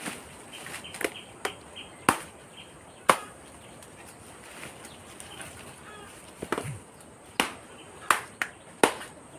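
Machete blade chopping into a felled fishtail palm trunk: sharp, separate strokes at an uneven pace, a handful in the first three seconds, then a pause, then a quicker run of blows in the last three seconds.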